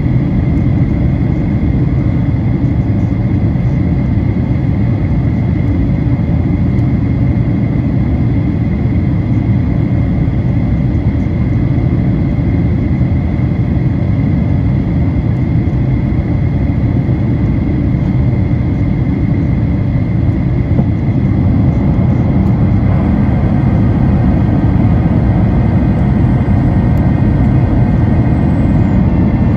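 Steady cabin noise inside a Boeing 737-900ER: the rush of air and the drone of its CFM56-7B engines, with a few steady whining tones over a low rumble. A little past two-thirds of the way through it grows slightly louder and a high thin whine joins, dropping away just before the end.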